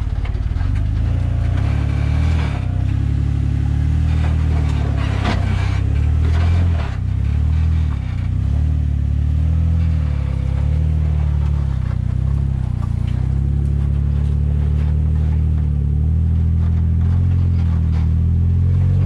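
Jeep engine revving hard under load, its pitch rising and falling repeatedly, as the Jeep strains to climb a steep rock obstacle without making headway.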